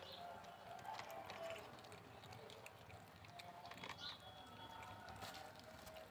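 Kittens chewing and licking food from a plastic tray: quiet, scattered soft clicks and smacks.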